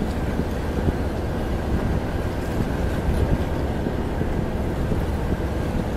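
Steady wind rumbling on the microphone aboard a boat at sea, a dense low noise with no distinct events.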